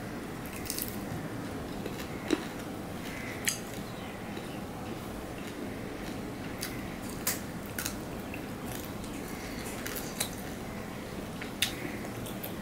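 A person eating rice and fish curry by hand: wet chewing and squishing of food, with a few scattered sharp clicks over a steady background hiss.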